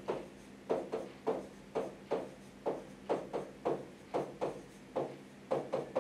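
A series of soft, dull taps or knocks, irregular, about two to three a second.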